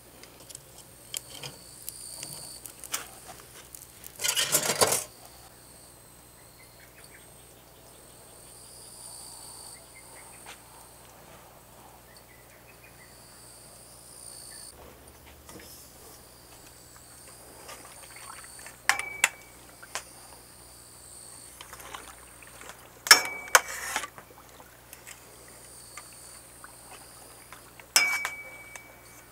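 Insects chirring steadily in the background, broken by a few sharp metallic clinks with a short ring, like metal knocking on the aluminium stockpot or the wood stove, in the second half and near the end. A short loud rushing noise comes about four seconds in.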